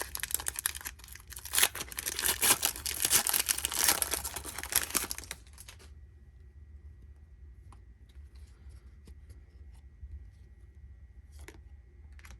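A trading-card pack wrapper crinkling and tearing as it is opened, for about six seconds, then faint clicks and rustles of cards being handled.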